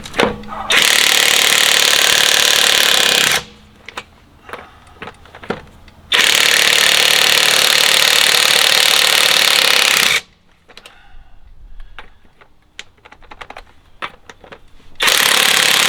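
Alloyman 20-volt cordless 1/2-inch impact wrench hammering lug nuts loose: three long runs of a few seconds each, with small clicks and knocks of handling the nuts and socket in between.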